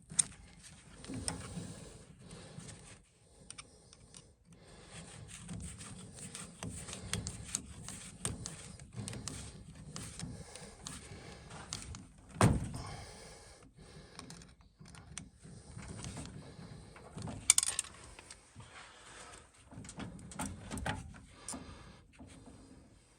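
Handling noises: irregular clicks and rattles with a low rumble under them, and two sharper knocks, one about halfway through and another a few seconds later.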